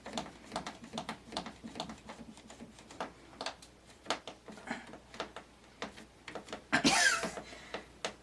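Clamps being tightened on glued-up plywood boards: a string of irregular clicks and knocks, with one louder squeak that falls in pitch about seven seconds in.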